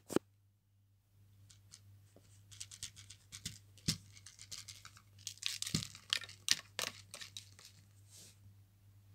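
Scattered light clicks and rustles of small plastic toy figures being handled and shifted on a carpet, starting about a second in and busiest past the middle, over a faint steady low hum.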